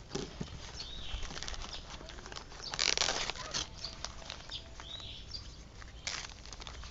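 Plant packaging being handled, giving a few short rustling bursts. A bird chirps twice in the background.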